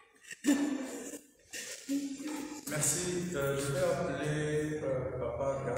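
Several voices singing a hymn without instruments, settling into long held notes about halfway through.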